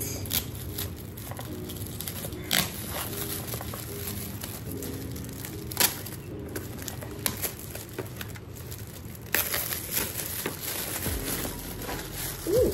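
Gift wrapping being torn open and crumpled by hand as a present is unwrapped, in irregular crinkles and rips, with a longer burst of rustling about two-thirds of the way in.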